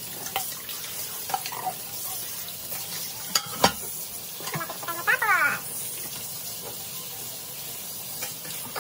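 Kitchen tap running steadily onto dishes in a stainless steel sink while they are washed by hand, with a couple of knocks of dishware about three and a half seconds in and a short squeak about five seconds in.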